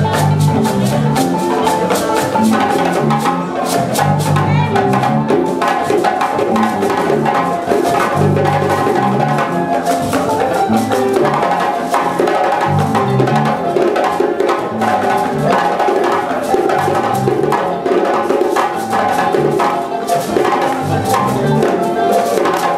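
Live West African ensemble music: balafons, wooden-keyed xylophones with gourd resonators, play a fast repeating melody over djembe hand drums, with steady low notes underneath.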